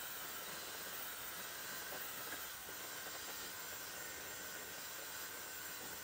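Dyson Supersonic hair dryer blowing steadily on medium heat and full airflow: a smooth, even rush of air with a faint steady tone in it.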